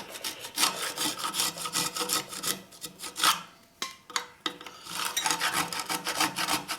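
A hand-held saw blade drawn back and forth through a narrow slot to widen it, in quick rasping strokes. The strokes stop for about a second just past the middle and then pick up again.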